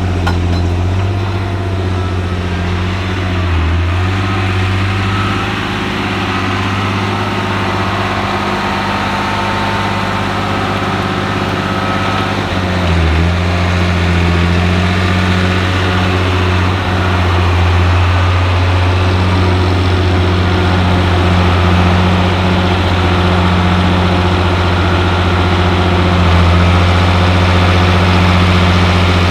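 John Deere 8300 tractor's six-cylinder diesel engine running steadily under load while pulling a seven-furrow plough. The note dips briefly twice, about three and a half and thirteen seconds in.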